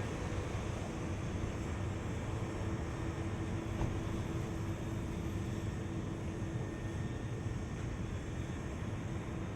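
Thunderstorm noise: a steady rushing of rain and wind with a low rumble underneath.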